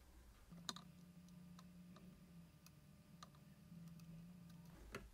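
Near silence: faint, irregular small ticks over a faint low hum while a transistor's legs are soldered into a circuit board.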